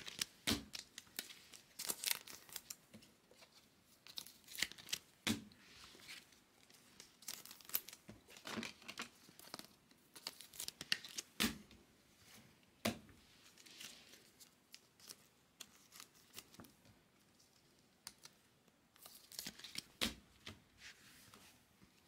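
Trading card pack wrappers being torn open and crinkled, with cards rustling and sliding against each other as they are handled, in short irregular bursts.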